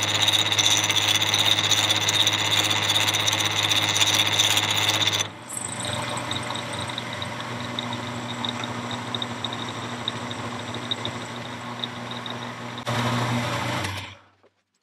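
Carbide end mill cutting a full-depth 1/4-inch keyway in annealed 4140 steel on a round-column mill-drill at 1600 RPM: a loud, steady cutting noise with a little rattle. About five seconds in it drops abruptly to a quieter steady running sound. Near the end it swells briefly, then stops.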